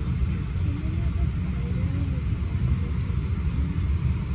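Steady low rumble of a Boeing 777-200ER's cabin while the airliner is still on the ground, with faint passenger voices in the background.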